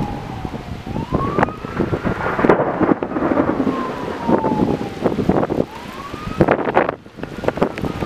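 A siren wailing slowly up and down in pitch, rising twice and falling back each time, over gusty wind noise and crackling on the microphone during a thunderstorm.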